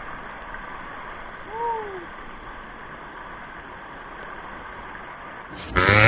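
Steady rushing of a waterfall, dull with nothing in the high end, with one short call that rises and falls in pitch about a second and a half in. Loud music cuts in near the end.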